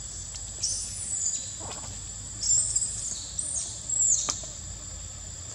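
Insects droning steadily at a high pitch, with several short, high, arching calls over it, the loudest about a second in and again from two and a half to four seconds in.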